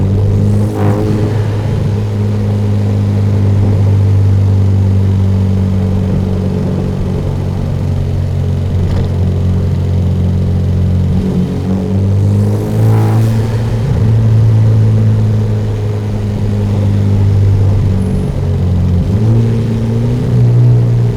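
Turbocharged Hyundai Genesis Coupe engine and free-flow aftermarket exhaust, running at a steady cruise with a constant drone. Brief hissing rushes come about a second in and again around thirteen seconds in, and the engine note steps up in pitch twice as the throttle changes.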